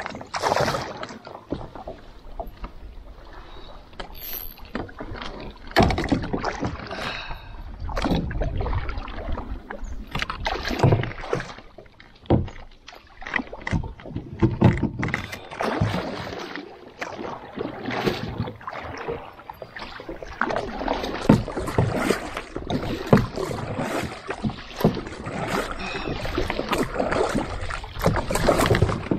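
Kayak paddle strokes splashing and dripping in river water at an uneven pace, taken one-handed.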